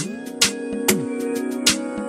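Background music: an electronic track with a steady beat of sharp drum hits about twice a second over sustained pitched tones, with a deep bass note that falls in pitch after some hits.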